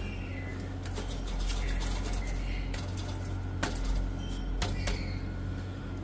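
Low steady hum of the Tahoe's 5.3-litre V8 idling, heard from under the truck, with a few sharp, irregular metallic clicks and rattles scattered through it. The rattle is the one being chased under the truck, which the mechanic puts down to part of the catalytic converter coming apart inside.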